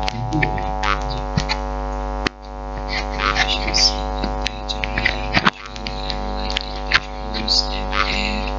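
A steady buzzing drone with many overtones, with scattered clicks; it drops away sharply for a moment twice.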